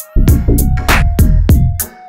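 Electronic background music with a heavy bass beat, sharp percussion hits and a synth melody.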